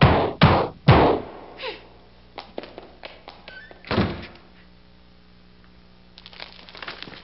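Heavy stomps on a hard wooden floor, about two or three a second, stopping about a second in; then scattered light taps, a single heavy thud about four seconds in, and faint clicking near the end.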